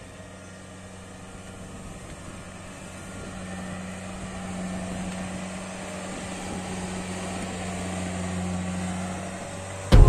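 Kubota DC68G rice combine harvester's diesel engine running steadily under cutting load, a low hum that grows gradually louder as the machine approaches.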